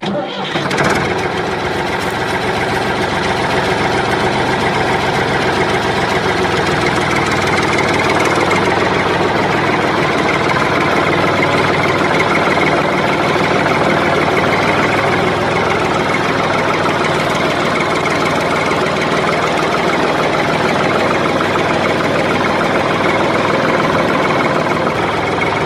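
Engine running steadily, a tractor engine sound effect dubbed over the toy footage; it gets slightly louder about eight seconds in.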